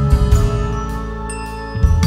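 Background music with a tinkling, chiming melody over a steady bass.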